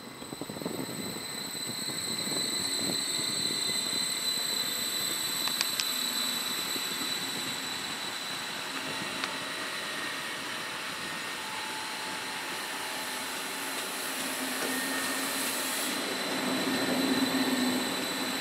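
Stadler FLIRT electric multiple unit running past along the platform, two units coupled, with a steady high electric whine from its traction equipment over the rolling noise of the wheels. A few light clicks come from the wheels on the track.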